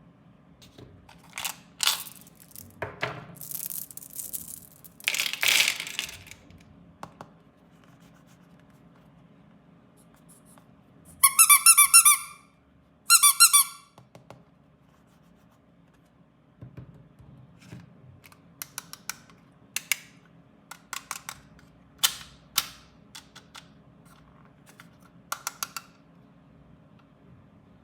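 Toy and candy packaging handled: crinkling and rustling for the first few seconds, then two loud, high squeaks about a second apart, followed by a string of light plastic clicks and taps.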